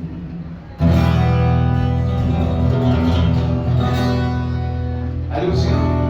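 Music that starts suddenly and loudly about a second in, held chords with a guitar-like sound, changing to a new passage near the end.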